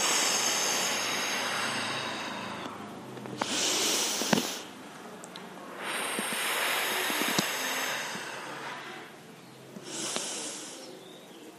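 A woman's deep exercise breathing: two long breaths out through pursed lips, each followed by a shorter, sharper breath in.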